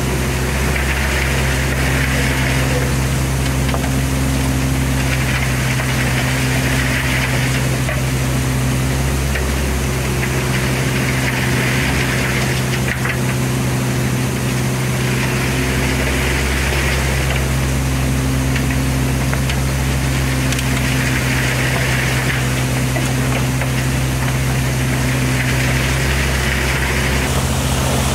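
Diesel engine of a Hyundai 17 mini excavator running steadily while it digs, with a hiss that swells and fades about every five seconds.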